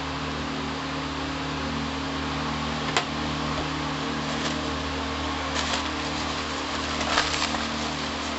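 A steady mechanical hum with an even hiss, with a few light knocks of dishes being set down on the table: a sharp one about three seconds in and a small cluster near the end.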